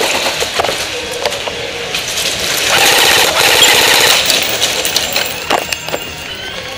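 Rapid automatic gunfire: a dense, fast rattle that is loudest for about two seconds in the middle, with scattered single sharp cracks before and after.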